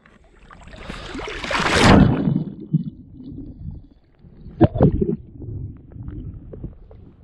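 Muffled water noise from an action camera moving underwater: a rushing swell that builds to its loudest about two seconds in, then low sloshing and gurgling with two sharp knocks near the middle.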